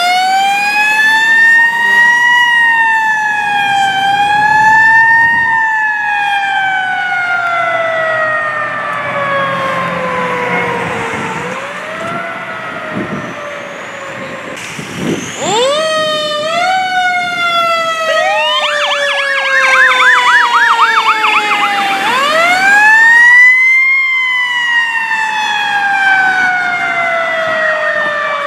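Fire engine sirens wailing, pitch rising and falling in long sweeps and winding down slowly between rises. About two-thirds through a fast warbling yelp cuts in, then the wail climbs once more and slowly falls away.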